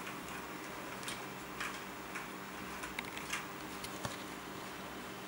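Faint, irregular small clicks and rustles of fingers handling thin wires and the plastic clock-movement housing, over a steady low hum.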